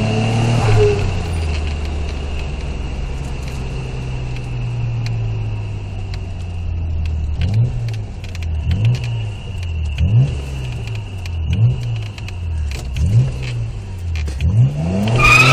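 Nissan RB26DETT twin-turbo straight-six, heard from inside the cabin. It runs steadily at low revs, then from about halfway through gets around six quick throttle blips, each a short rise and fall in pitch about a second and a half apart. A harder rev starts near the end.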